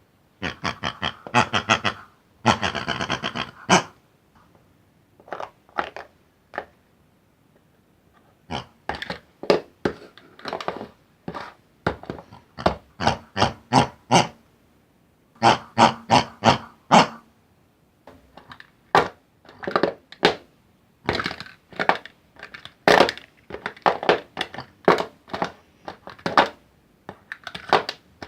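Pig oinking and grunting in quick clusters of short calls, with brief pauses between the runs.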